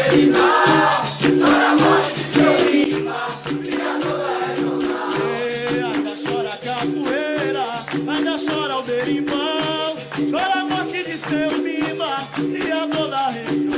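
Capoeira music: voices singing over a berimbau's two alternating notes, with a shaken caxixi rattle and percussion keeping a fast, even beat.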